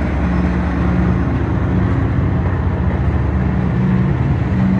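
Pakistan Railways container freight train rolling past close by: a steady rumble of wagons on the rails with a low hum underneath.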